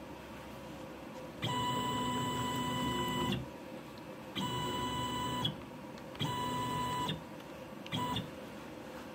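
CNC machine's stepper motors whining as the axis is jogged in four separate moves, each at a steady pitch that starts and stops abruptly. The moves get shorter: the first lasts about two seconds, the last is a brief blip near the end.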